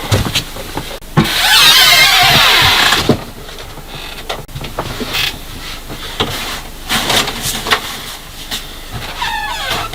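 Rustling and squeaky handling noise of outdoor clothes being taken off and handled, loudest from about one to three seconds in, with scattered clicks and another squeaky rustle near the end.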